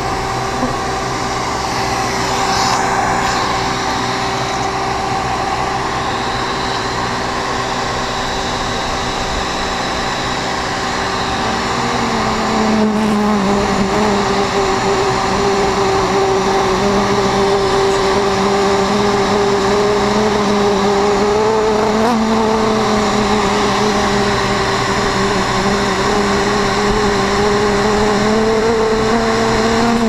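Bee-friendly vacuum running steadily with a loud motor hum, which rises a little in pitch and starts to waver about twelve seconds in.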